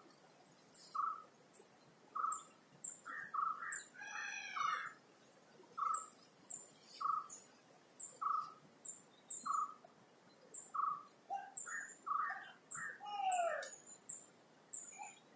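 Birds calling: one bird repeats a short mid-pitched note about once a second, while other birds chirp higher and give a few longer sliding calls.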